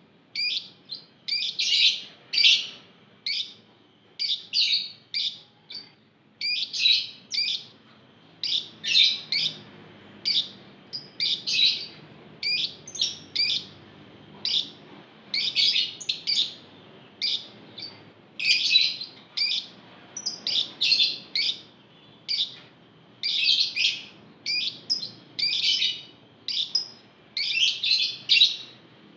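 A flock of caged lovebirds chattering: shrill, high-pitched chirps come in quick clusters of two to four, roughly one cluster a second, with short gaps between them.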